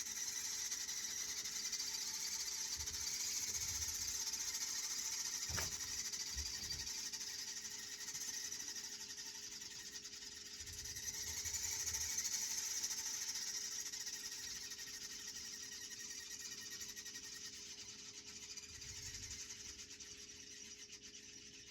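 Chimney swift chicks inside the chimney giving their high, raspy begging chatter as a parent comes down to feed them; the chorus swells about halfway through and then fades. A single click about five seconds in.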